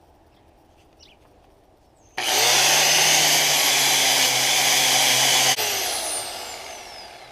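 Angle grinder fitted with a flap disc starts about two seconds in and grinds on the steel truck frame for about three seconds with a loud, steady hiss over its motor hum. It is then switched off and spins down with a falling whine.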